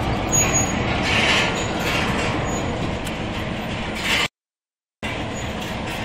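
Overhead chain conveyor of a hanging-basket chicken and duck frying line running, a steady mechanical rumble and rattle. The sound cuts out completely for under a second about four seconds in, then resumes.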